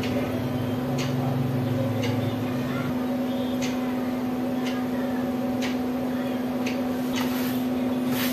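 A steady hum with a light tick roughly once a second.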